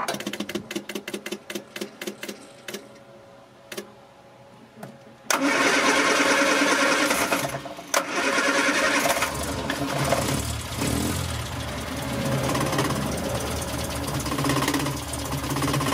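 SU electric fuel pump ticking as it primes, about four quick clicks a second at first, thinning to occasional clicks as the carburettor fills. About five seconds in, the 1968 Morris Minor's A-series four-cylinder engine starts and keeps running.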